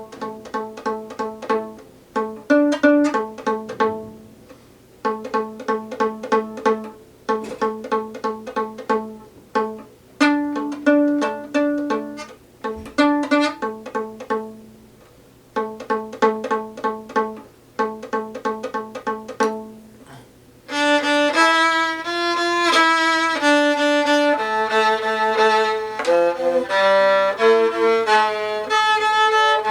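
Viola played pizzicato, plucked notes in quick groups with short pauses between phrases. About 21 seconds in it switches to bowed notes, held and joined, running on to the end.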